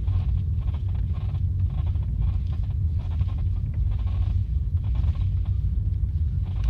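Chevrolet Lacetti in motion: a steady low rumble with irregular short squeaks, the squeak from the front left of the car.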